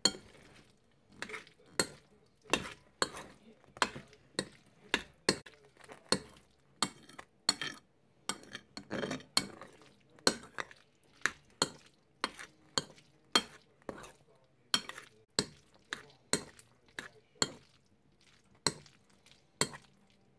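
A fork repeatedly clinking and scraping against a dish while scooping up Kraft Dinner macaroni, a steady run of sharp clicks roughly two a second.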